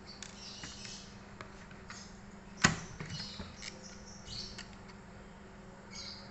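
Small clicks and scrapes of a hard drive and its parts being handled in an HP Mini 110 netbook's drive bay, with one sharp click about two and a half seconds in.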